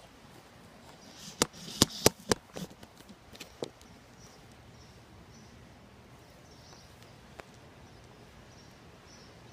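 A quick, irregular run of about seven sharp clicks and knocks close to the microphone, from about a second and a half in to nearly four seconds in. Then a quiet outdoor background with faint high chirps of birds or insects.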